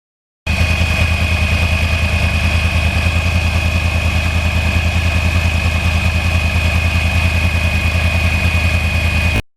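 Yamaha R1 crossplane inline-four motorcycle engine idling steadily, with an even, rapidly pulsing low rumble and a steady high-pitched tone over it. It begins abruptly about half a second in and cuts off abruptly near the end.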